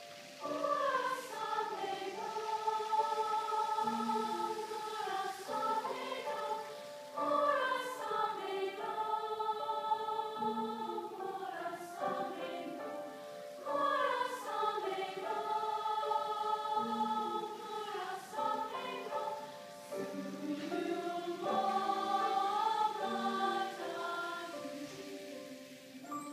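School choir of mixed voices singing long held notes in phrases that each begin about every six and a half seconds, with grand piano accompaniment.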